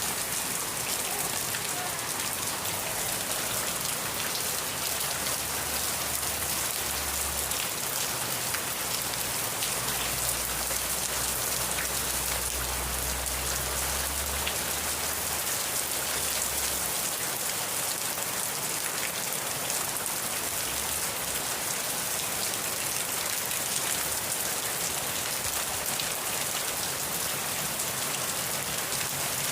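Rain falling steadily: an even hiss of rain with many small drop ticks. A faint low rumble comes in about ten seconds in and fades a few seconds later.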